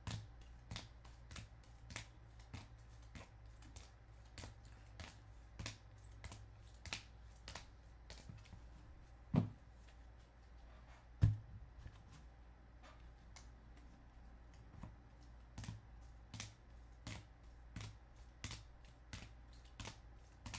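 Baseball cards in rigid plastic holders clicking against each other as they are flipped off a stack one at a time, about one and a half clicks a second, with two louder knocks around the middle.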